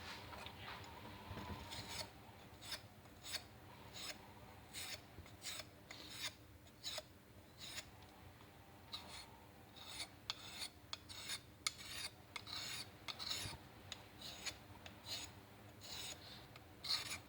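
Steel karambit blade drawn over a sharpening stone in a long run of short scraping strokes, about one to two a second and quicker in places, as its curved edge is sharpened.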